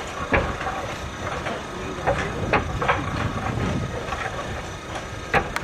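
Concrete flat roof tiles clacking against each other as they are lifted off a running tile conveyor and handed along, over the conveyor's steady low rumble. About half a dozen sharp knocks, the sharpest near the end.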